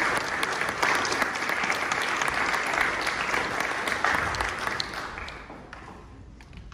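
Audience applauding, a crowd of hands clapping that dies away about five seconds in.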